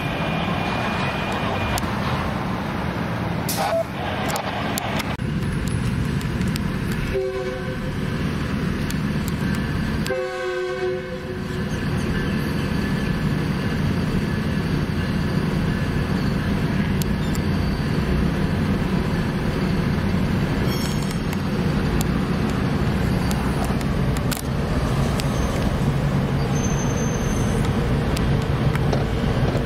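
Tri-Rail commuter train's horn sounding twice, a short blast then a longer one, over the steady low drone of idling traffic and the slowly passing train heard from inside a car.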